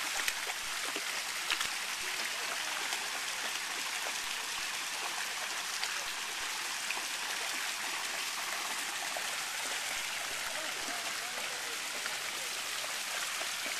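Fountain jets pouring into a shallow pool, a steady rush and patter of water, with small splashes from a dog wading through the water.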